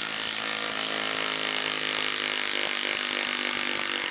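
Milwaukee M12 Stubby 1/2-inch cordless impact wrench running steadily in reverse, hammering a 6-inch lag screw back out of a wooden log.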